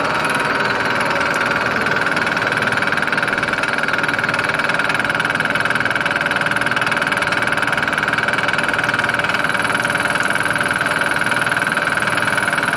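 Manual vertical milling machine cutting across the top of an aluminum block, the spinning cutter taking a steady pass to shave the block flat. A loud, steady, high-pitched cutting whine with a fine rapid chatter.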